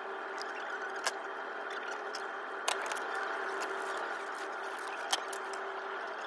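A steady hum with three sharp clicks and a few fainter ticks as a roll of tape and sheets of paper are handled and folded.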